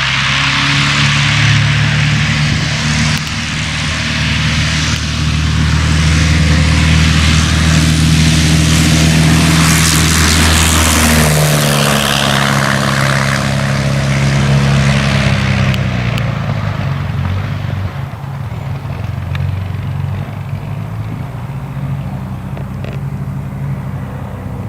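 A loud engine running with a steady hum and a strong rushing noise over it. The hum shifts pitch about halfway through, and the rushing noise falls away about two-thirds of the way in, leaving the engine hum.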